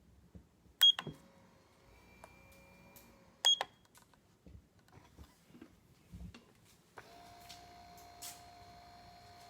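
Two short, sharp beeps from the Doctor Air 3D massage seat's controls a few seconds apart, with small clicks between. About seven seconds in, the seat's massage motor starts and runs with a steady hum and a held tone.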